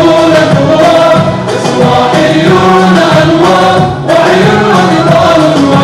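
Three men singing a song together into microphones, their voices amplified, with short breaks between phrases.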